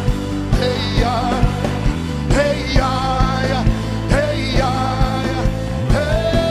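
Live worship music: a band playing with an even drum beat, and a voice singing drawn-out phrases, with a long held note near the end.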